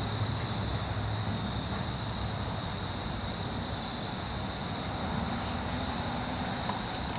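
Loaded ballast train's last cars rolling away, a steady low rumble of wheels on rail, over a constant high-pitched trill.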